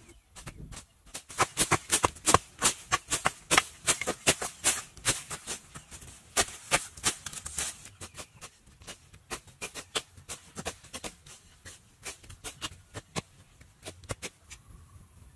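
Dry grass and weeds crackling and rustling as they are pulled and trampled, a dense run of sharp crisp snaps that thins out after about eight seconds.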